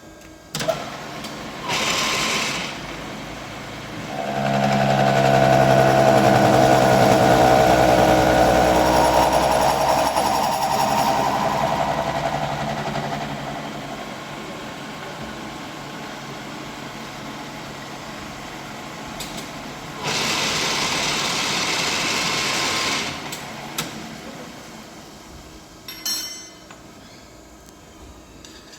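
A milling machine cutting the steel coupling of a ball valve. The cut runs loud with a ringing, humming tone for about ten seconds, then eases off. Short hissing bursts come near the start and again about two-thirds of the way through.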